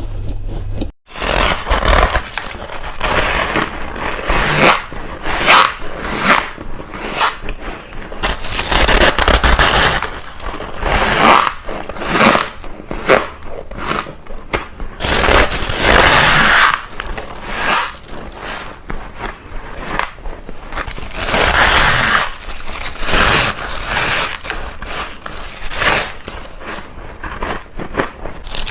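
Freezer frost being bitten and chewed close up: a run of repeated crunching bites, some long and grinding, some short. There is a brief break about a second in.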